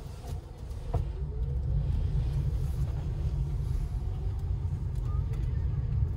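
Low, steady rumble of a car on the move, growing louder about a second in.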